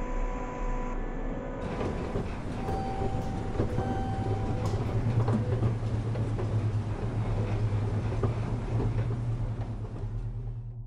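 A steady low mechanical rumble with a deep hum and scattered sharp knocks, like heavy machinery or a train, building up about two seconds in and fading out near the end.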